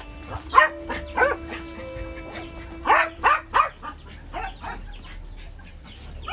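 Caged dogs barking. A bark comes about half a second in and another a little later, then a quick run of three near the middle, followed by softer barks, over background music with held tones.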